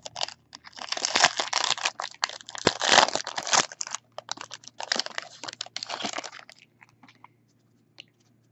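Crinkling and tearing of a trading-card pack's foil wrapper being ripped open and handled, a dense crackle that stops after about six seconds.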